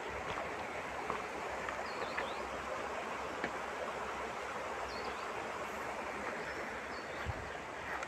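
Steady rushing of water from the Sirki waterfall and its rocky stream, with a few short, faint bird chirps above it.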